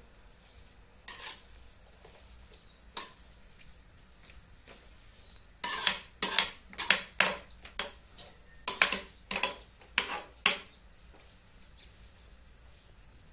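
A metal ladle clinking and scraping against a large metal cooking pot while thick grated-carrot halwa is stirred and scooped. Two single clinks come in the first three seconds, then a quick run of about a dozen sharp clanks a little before halfway, stopping about three seconds before the end.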